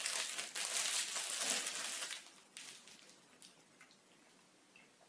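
Plastic snack-cake wrapper crinkling as a Twinkie is unwrapped, stopping about two seconds in, followed by a few faint isolated clicks.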